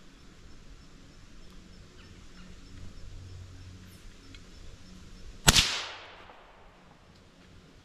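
A single rifle shot about five and a half seconds in: one sharp crack with a fading echo trailing for about half a second.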